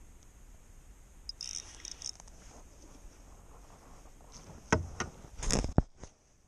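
Handling noise on a body-worn action camera: light clicks and rattles about a second and a half in, then a few sharp knocks and a brief scrubbing rush near the end as a hand presses and rubs against the camera.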